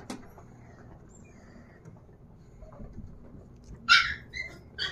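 Three short high-pitched calls from a pet near the end, the first the loudest, with a single click at the start.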